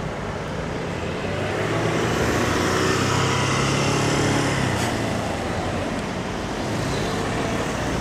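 Heavy truck's engine running as it drives slowly down the street, loudest a few seconds in and then easing off, amid general road traffic noise.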